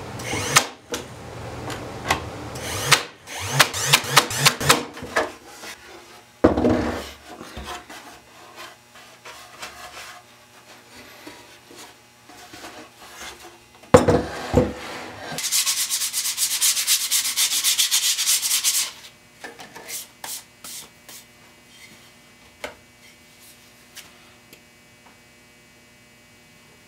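Cordless brad nailer firing several brads into wood boards in the first few seconds. Wooden parts are then handled with knocks, one loud knock about halfway through, followed by a few seconds of rapid rasping strokes on wood.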